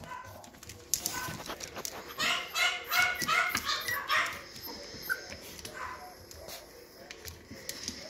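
Yorkshire terrier puppies yipping and whining as they play, with a quick run of short high yips about two seconds in. Scuffling and handling clicks sound around them.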